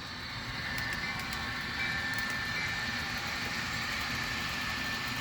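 Sound decoder of an HO scale Rapido F59PH model locomotive playing its diesel engine sound, steady and a little louder about a second in, after the throttle is raised, from the model's small speaker as it runs on the track.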